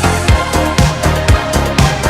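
Electronic dance music with a steady four-on-the-floor beat, about two kicks a second, over a sustained bassline.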